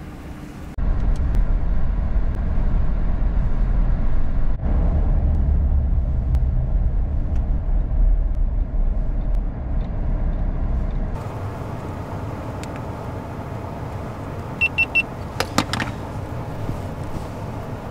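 Road and engine rumble of a vehicle driving, heard from inside the cab: a steady low rumble, louder for the first ten seconds or so, then quieter, with a few short clicks and beeps near the end.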